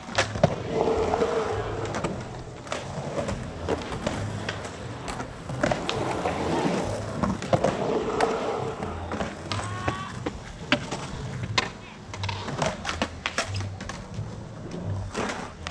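Skateboard wheels rolling and carving across a concrete pool bowl, the rolling noise swelling as the skater passes close, with scattered clicks and knocks from the board and trucks and a sharp knock about half a second in.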